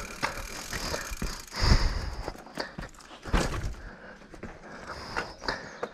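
Footsteps on a dirt trail with scattered knocks and clicks from an NS Fuzz 29 mountain bike being handled while stationary. Two heavier thumps come about one and a half and three and a half seconds in.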